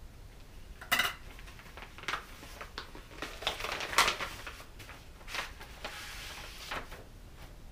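Paper wrapping of a gift package being handled and torn open: a run of irregular crinkles and crackles, the sharpest about a second in and about four seconds in.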